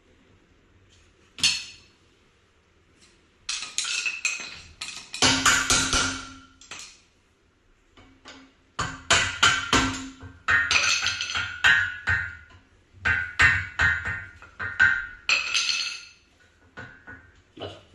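Hammer strikes on metal, driving tight pins out, in quick runs of blows that ring after each hit. A single blow comes about a second and a half in, the heavy runs follow, and a few lighter taps come near the end.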